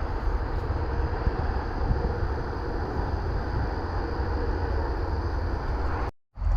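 Steady outdoor rumble of wind buffeting the microphone over road traffic noise, cut to silence for a moment near the end.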